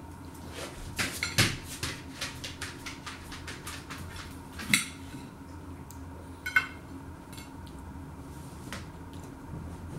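A knife clicking and knocking against a plate while cutting battered Spam cheese bites: a quick run of light clicks with a couple of sharper knocks, then a brief clatter about six and a half seconds in.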